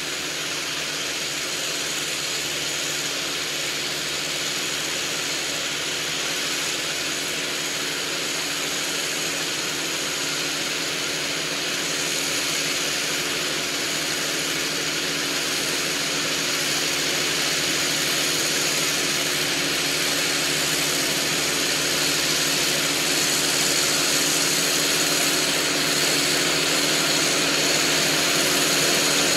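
Farm tractor engine running steadily under load while tilling with a rear rotary tiller, a constant drone that grows gradually louder as the tractor approaches.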